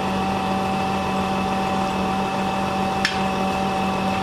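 Truck-mounted crane running under load: the truck's engine and hydraulic pump give a steady drone with a constant whine. One short sharp click about three seconds in.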